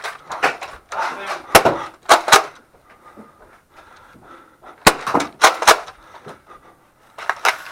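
Sharp clacks and cracks of Nerf foam-dart blasters firing and darts striking, about seven in scattered clusters of two or three, with faint voices between.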